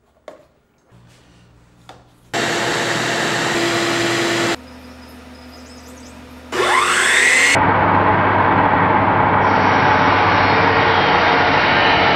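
Hitachi 12-inch sliding miter saw: a few light clicks of handling, a loud rushing noise that starts and stops abruptly for about two seconds, then about six and a half seconds in the motor whines up to speed and runs loud and steady as the blade cuts down into a wooden board.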